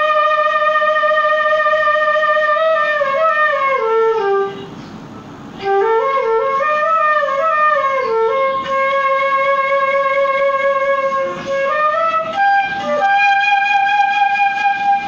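Background music: a solo melody of long held notes and stepwise, sliding runs, breaking off for about a second roughly five seconds in before going on.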